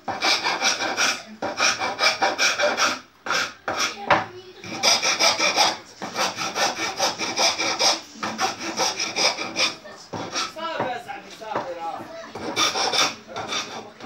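Wooden hand plane scraping along a small piece of wood in repeated back-and-forth strokes, one about every second or two.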